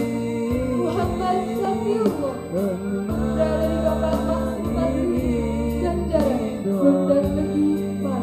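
Male students singing a melodic devotional song together with an electronic keyboard accompaniment, sustained bass notes under the voices.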